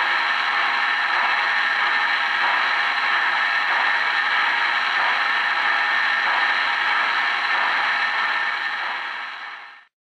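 Steady whir and clatter of O-gauge three-rail model trains running on the layout, fading out near the end.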